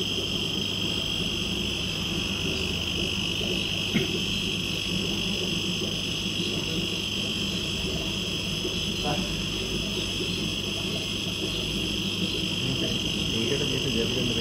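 A steady high-pitched drone over a low background hum, with one sharp click about four seconds in.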